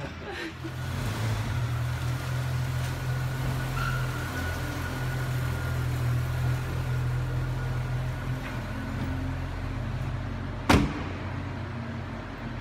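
Steady low rumble of a vehicle or garage machinery. About eleven seconds in, a car door shuts with a single loud bang.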